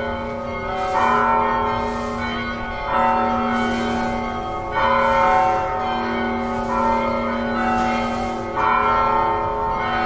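Church bells ringing, several bells struck in turn with a fresh strike every second or two, their tones overlapping as each rings on.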